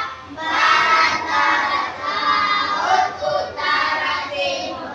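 A class of children chanting together in unison, reciting the compass directions in drawn-out phrases of about a second each.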